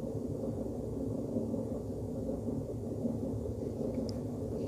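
Steady low background rumble with a couple of faint clicks about four seconds in.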